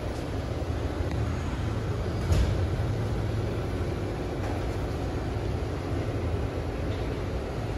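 Drivetrain of a 2020 Ford Transit AWD running with the van up on a lift: a steady low hum from the turning driveshaft and rear axle. One short knock comes about two seconds in.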